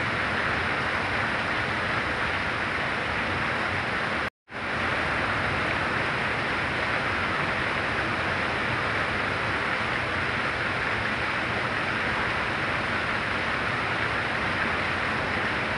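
Heavy rain falling steadily, an even hiss. The sound cuts out for a split second about four seconds in, then resumes just as before.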